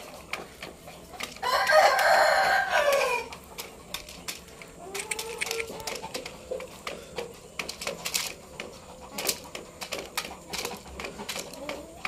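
A rooster crows once, a long call starting about a second in and lasting about two seconds. Later a softer cluck is followed by a run of sharp clicks from a rooster's beak pecking feed out of a plastic cup.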